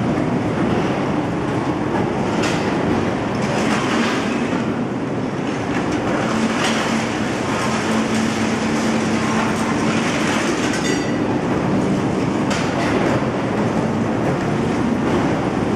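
Overhead crane with a lifting magnet running as it loads scrap metal: a steady drone and low hum from its travel and hoist drives, broken several times by grinding and clattering of scrap steel as the magnet works the pile.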